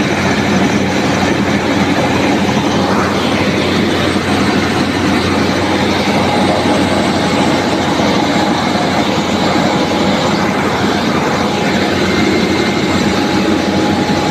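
NG 25D combined rice milling machine running steadily: a loud, even mechanical noise with a constant hum.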